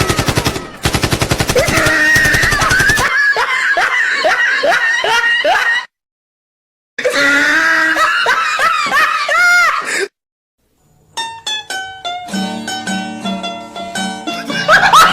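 A rapid burst of automatic gunfire sound effect for about three seconds, then comic sound effects that swoop up and down in pitch, broken by sudden silences, and music with stepping notes near the end.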